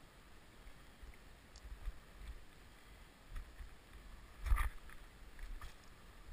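Wind buffeting the microphone in low, uneven gusts, with a few faint clicks and one louder, short scrape or knock about four and a half seconds in.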